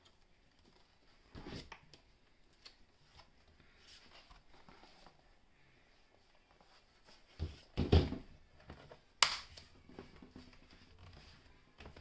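Plastic bottom cover of a laptop being handled and pressed so its clips snap into place: scattered faint clicks, a few dull thumps about seven and a half seconds in, and a sharp snap about a second later.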